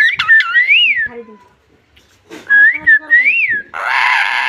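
Pet parrot whistling two short phrases of rising and falling notes, then a harsh raspy burst near the end.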